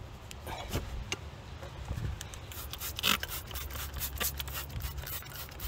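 Hand scraping and rubbing at rusted brake-pad hardware, metal on metal in short, irregular strokes, as pads that rust has stuck in place are worked loose and cleaned.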